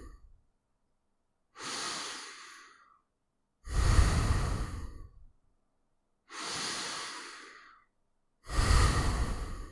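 A person breathing slowly in and out through the nose, about two full breaths. Each breath lasts about a second and a half with a short pause between. Every other breath is louder and carries a low rumble of air.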